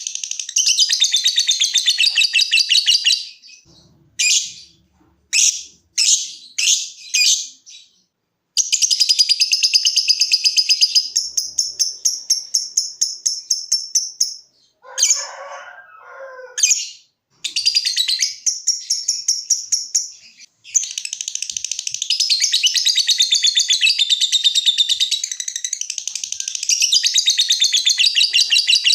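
Lovebird ngekek: long, fast chattering trills in runs of several seconds, broken between them by a few short single chirps and, about fifteen seconds in, by a brief lower, rougher call.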